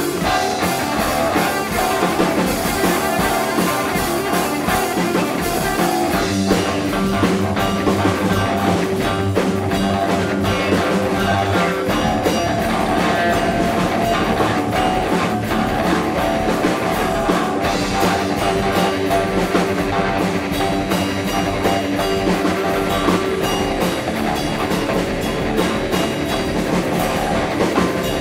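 Rock jam on a drum kit and two guitars, playing continuously without a break.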